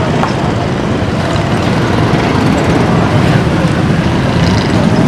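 Street traffic, led by a small motor engine running close by: a loud, steady, fast low chugging.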